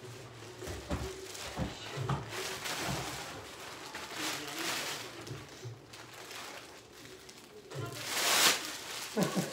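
Large black plastic bag rustling and crinkling as it is handled, with a loud crackle about eight seconds in. Faint background music runs underneath.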